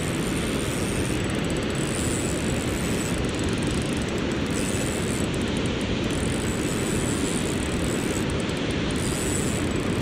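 Steady roar of water pouring over a dam's spillway gates, an even rushing noise that holds at one level throughout.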